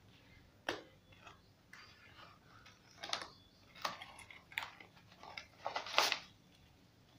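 Cardboard packaging handled and opened by hand: irregular clicks, taps and crinkles, the loudest about six seconds in.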